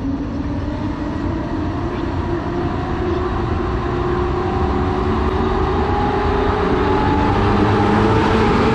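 EP07 electric locomotive hauling a passenger train out of the station, its motor whine rising slowly in pitch and growing louder as it picks up speed, over the rumble of the train.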